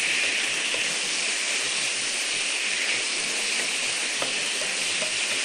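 Chicken breast sizzling steadily in a frying pan, a continuous even hiss with faint occasional pops as it cooks through.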